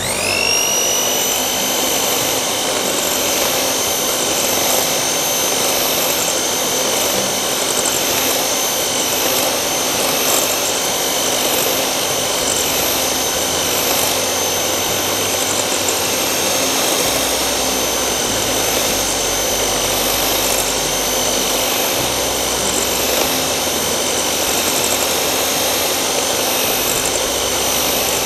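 Electric hand mixer running with its twin beaters whipping eggs and sugar in a glass bowl. The motor speeds up at the start, then runs at a steady high whine.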